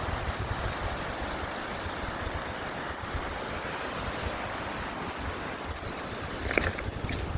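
Wind buffeting the microphone over a steady rushing noise, with a few sharp clicks about six and a half seconds in.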